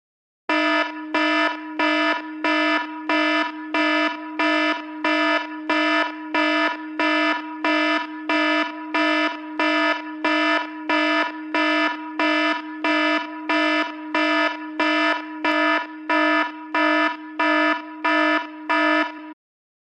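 Alarm-style ringtone: one buzzy beep repeated evenly, about one and a half times a second. It stops suddenly about a second before the end.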